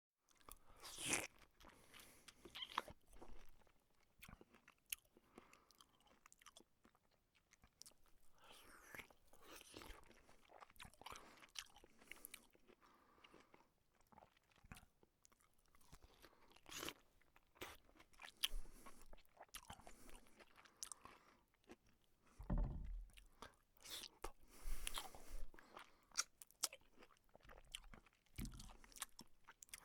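A person eating close to the microphone: quiet, irregular chewing and crunchy bites, with a few louder bites scattered through.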